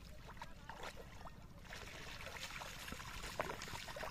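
A wet cast net being drawn through shallow water and lifted out, with water splashing and trickling off it. The trickle gets louder about halfway through.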